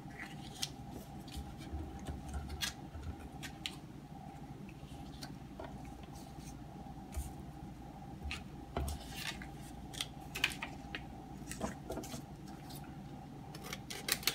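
Irregular light clicks, taps and rustles of vinyl decal sheets and their paper backing being handled, shifted and laid down on a painted wooden toilet seat lid, over a steady low hum.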